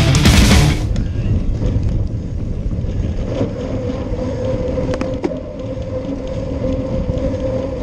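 Heavy rock music cuts off about a second in, leaving the low rumble of wind and tyre noise from a camera riding on a cyclocross bike. A steady hum joins about three seconds later as the bike rolls onto pavement.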